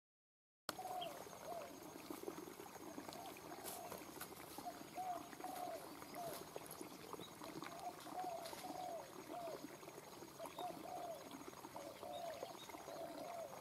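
Faint animal calls: an irregular series of short, arched mid-pitched notes, repeating every second or so, over a faint high pulsing trill.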